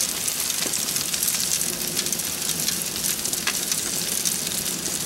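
Salmon fillets sizzling on aluminium foil over a hot grill fire: a steady frying hiss with a few small crackles.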